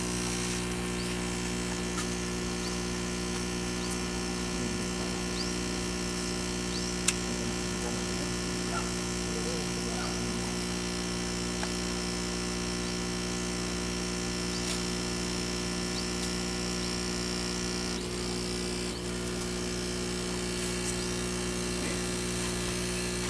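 Small electric pump running with a steady buzzing hum, with a single sharp click about seven seconds in.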